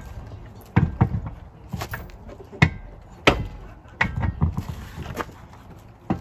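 Irregular knocks and clunks of a car wheel and tyre being shifted and seated onto the hub studs by hand, the sharpest two about halfway through.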